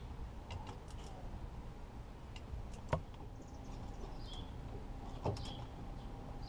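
Faint metallic clicks and ticks of a 3/8-inch click-type torque wrench tightening exhaust manifold nuts to torque, with a sharper click about three seconds in and another about five seconds in. The click is not very loud.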